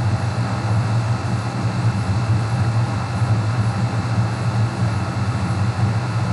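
Steady low machine hum with an even hiss over it, unbroken and unchanging.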